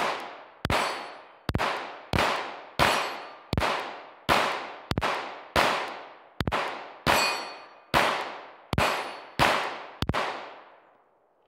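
Glock pistol firing fifteen rounds of Federal aluminum-cased ammunition in a steady string, about one shot every 0.7 seconds, each shot trailing a long ringing decay with steel plate targets clanging. All fifteen rounds cycle with no stoppage, emptying the magazine.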